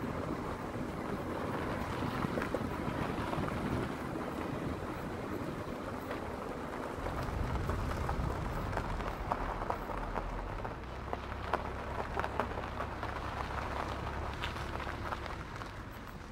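Footsteps on a gravel dirt road, many small crunching ticks, over wind rumbling on the microphone that grows heavier about seven seconds in.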